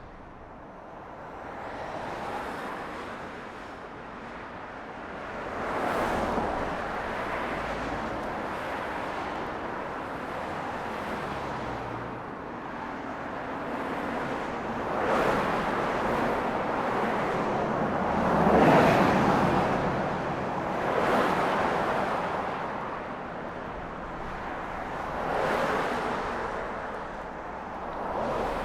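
Road traffic: cars passing one after another, each pass rising and fading, over a steady traffic hum. The loudest pass comes about two-thirds of the way through.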